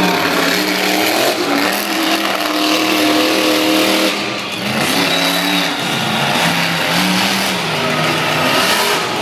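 Monster truck engines revving, the pitch stepping up and falling back several times, with a short lull about four seconds in.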